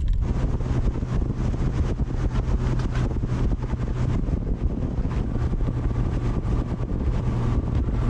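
A bass boat's outboard motor running steadily at speed, with wind rushing over the microphone.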